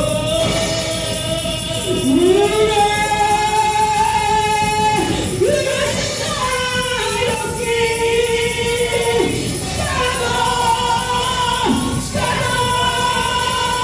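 Gospel worship singing with musical accompaniment: voices hold long notes in phrases that break every few seconds.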